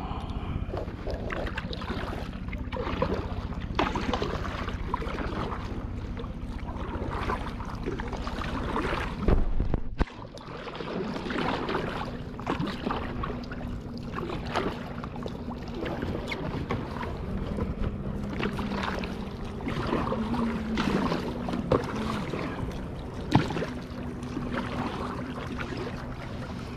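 Kayak paddles splashing and dripping in rhythm as a tandem sit-on-top kayak is paddled across open bay water. Wind buffets the microphone heavily at first, then drops off suddenly about a third of the way in.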